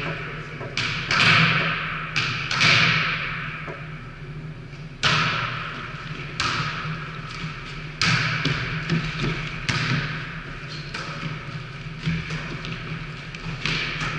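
A volleyball being struck in play, about eight sharp smacks a second or two apart from sets, hits and a block at the net, each with a long echo in a large gym hall.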